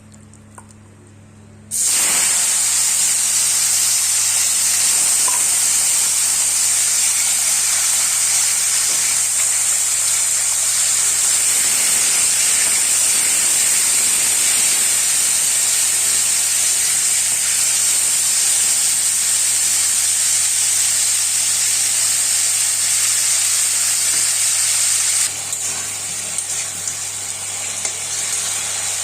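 Chicken pieces rubbed with salt and turmeric sizzling loudly and steadily in hot oil in a kadai as they fry. The sizzle starts suddenly about two seconds in and drops a little in loudness near the end.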